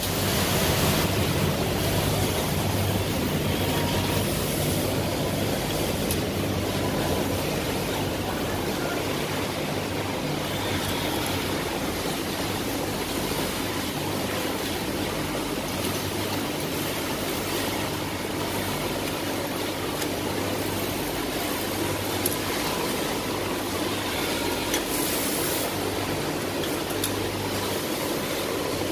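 Steady machine din of a garment factory floor, with many industrial sewing machines running and a low hum underneath.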